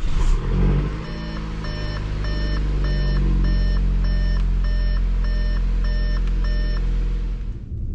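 Audi S5 engine just after a cold start in freezing weather, flaring up for about a second and then settling into a steady fast idle. Over it the dashboard warning chime beeps about ten times in an even rhythm, stopping shortly before the end.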